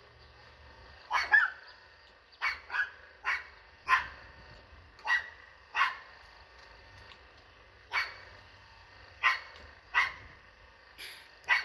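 A dog barking repeatedly, about a dozen short sharp barks at an irregular pace, some in quick pairs, with a pause of about two seconds in the middle.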